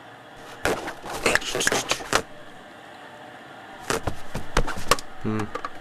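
Two quick flurries of light knocks and scuffs, followed near the end by a short, low voice-like sound.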